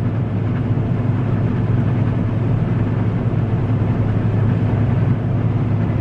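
Combine harvester running steadily with its threshing machinery engaged, a constant low drone heard from inside the cab. The cleaning fan is turning at almost 1,100 rpm while its speed is being adjusted.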